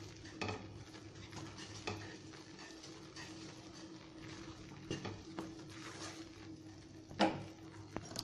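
A wooden spatula stirs and scrapes thick gram-flour, sugar and ghee Mysore pak batter in a nonstick kadai, giving soft scraping and light knocks against the pan. The batter is at the done stage, coming away from the pan without sticking. A louder knock of pan or spatula comes about seven seconds in, over a faint steady hum.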